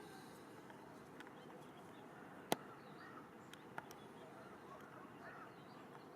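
Faint outdoor ambience with distant birds chirping. A sharp click sounds about two and a half seconds in, and two softer clicks follow about a second later.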